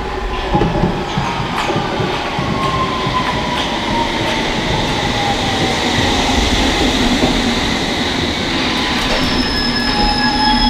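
London Underground S7 Stock train running into the platform and braking, its motor whine falling in pitch as it slows. A high brake squeal starts as it draws to a stop near the end.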